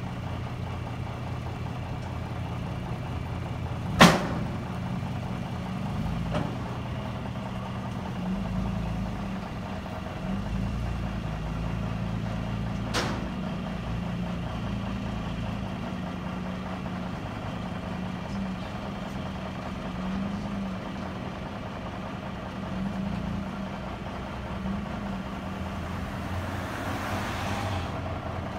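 Truck engines running steadily at low revs while a pickup truck climbs the loading ramp onto a car-carrier trailer. A sharp loud knock comes about four seconds in and a fainter one around thirteen seconds, and a hiss rises near the end.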